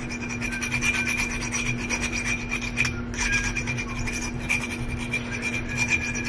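Wet metal nail file rasping back and forth over the chipped rim of a drinking glass in quick, continuous strokes, grinding the sharp edge smooth.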